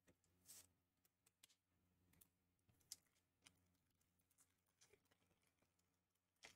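Near silence with faint scattered clicks and a brief rustle: trading cards being handled between pulls.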